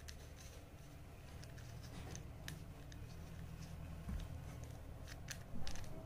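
Plastic 3x3 Rubik's cube being turned by hand: faint, scattered clicks and rattles as the layers rotate, with more of them near the end, over a low hum.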